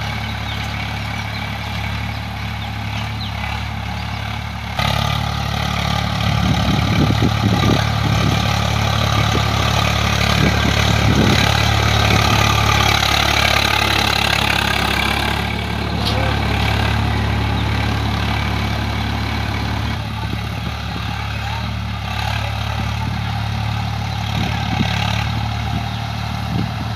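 Swaraj 744 FE tractor's three-cylinder diesel engine running steadily under load while driving a rotavator through the soil. It gets suddenly louder about five seconds in and eases off again after about twenty seconds.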